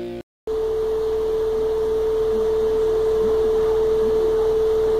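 A steady electronic tone at a single mid pitch, like a test or reference tone, over a constant hiss. It starts after a brief drop to dead silence and holds unchanged.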